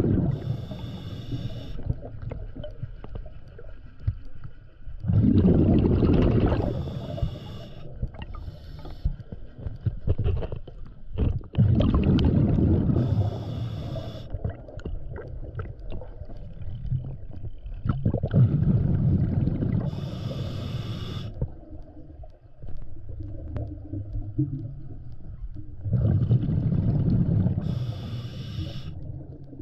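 Scuba diver breathing through a regulator underwater: about five breaths, each a rumbling rush of exhaled bubbles followed by the short hiss of the inhale, roughly every six to seven seconds.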